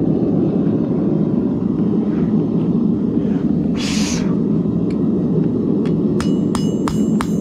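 Gas forge burner running with a steady roar, a short hiss about four seconds in, then a run of hammer blows on hot 1084 high-carbon steel over the anvil near the end, about three a second, each one ringing.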